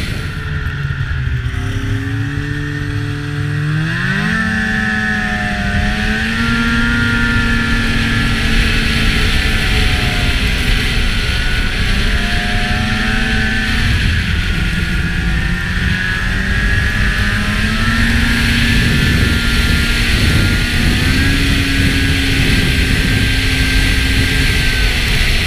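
2003 Ski-Doo MX Z 600 snowmobile's Rotax two-stroke twin running under way. Its pitch climbs steeply about four seconds in as it speeds up, then eases off and picks up again a couple of times, with wind rumble on the camera.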